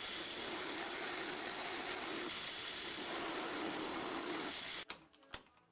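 Pillar drill running a cutter that mills a flat on the edge of a bronze cylinder end cover: a steady machining whirr with a cutting note that swells and fades. It stops abruptly near the end, followed by a couple of faint clicks.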